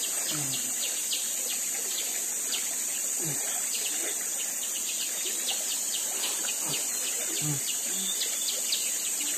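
Forest morning chorus: a steady high-pitched insect drone with quick, repeated chirping over it, and a few short low calls here and there.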